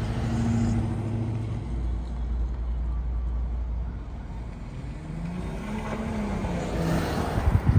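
A motor vehicle's engine running steadily, its pitch rising and then falling briefly about five to six seconds in, with a few sharp knocks near the end.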